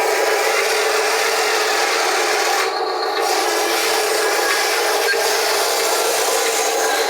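Wheel loader working, a steady machine whir with a few held tones and no deep rumble; the high end drops out briefly about three seconds in.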